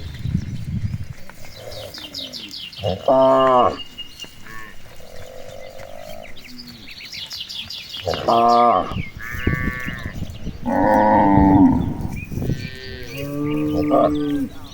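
Cattle mooing: a run of separate moos, some short and some drawn out. The loudest comes about three seconds in, and another cluster runs from about eight to twelve seconds.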